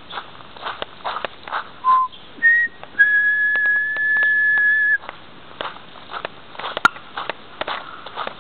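Three clear whistled notes: a short low note, a short higher one, then a loud steady note held for about two seconds. Footsteps on a paved path run underneath.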